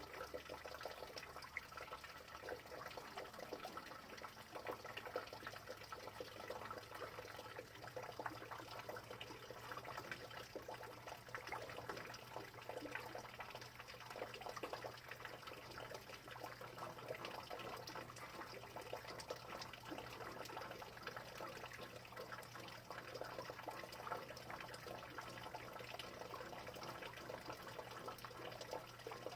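Rain falling steadily: a dense, even scatter of small drop ticks and trickling water, with a faint steady low hum underneath.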